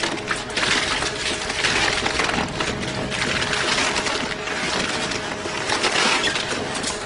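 Twin-shaft shredder's cutter discs crunching and tearing through a block of layered material: a dense, continuous run of cracks and crackles over a steady machine hum.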